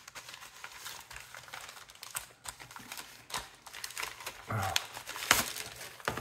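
Packaging crinkling and crackling in irregular bursts as a small mail parcel is unwrapped by hand.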